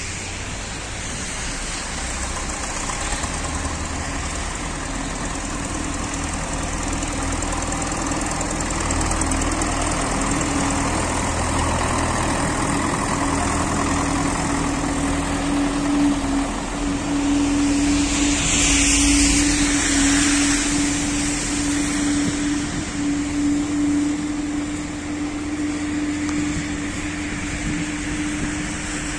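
Diesel tractor with a front snow blade working close by, its engine running with a steady drone and a constant hum, growing louder over the first several seconds. A brief, louder rush of noise comes about two-thirds of the way in.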